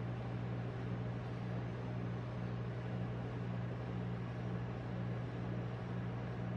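Steady low hum with a faint hiss from the rolled-ice-cream machine's refrigerated cold plate running.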